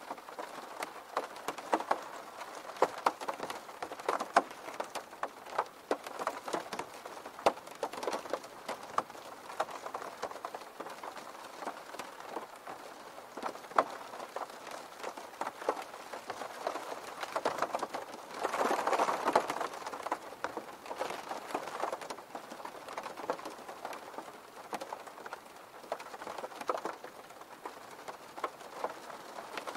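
Rain striking a window pane: a steady hiss of rain with many separate drop taps, swelling louder for a couple of seconds about two-thirds of the way through.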